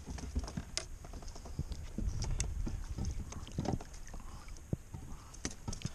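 Scattered knocks, clicks and light splashes as a redfish is netted beside the plastic kayaks and handled in the landing net.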